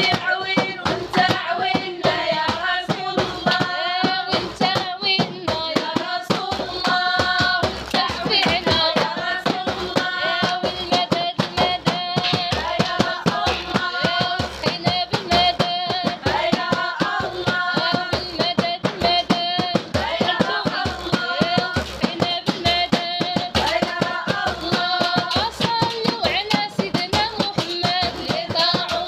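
A group singing a praise song together to rhythmic hand clapping and percussion, with the claps keeping a fast, steady beat under the voices.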